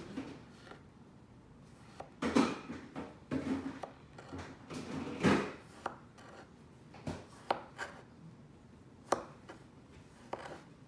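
Kitchen knife slicing through kinetic sand on a wooden tabletop: several gritty cutting strokes, the loudest about two and five seconds in, then a few short clicks.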